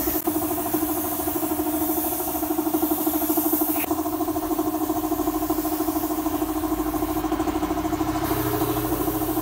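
Air compressor supplying a paint spray gun, running steadily with a fast, even pulse.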